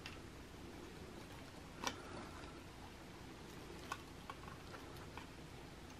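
A few faint, scattered clicks from fingers handling a circuit board while fitting a capacitor into it; the sharpest click comes about two seconds in, with smaller ticks later.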